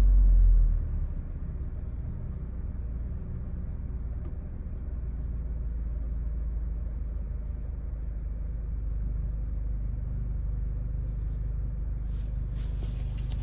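2008 Audi A4 B7 2.0T turbocharged four-cylinder engine, first held up on the throttle, dropping back to idle about a second in, then idling steadily as a low hum. This is a car with a rough-idle and stalling fault that had to be kept alive on the gas pedal and is now idling smoothly.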